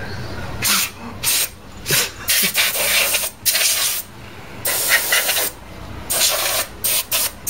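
Compressed air hissing in about ten short and longer bursts, blowing dust out of a Drobo disk array's metal drive chassis.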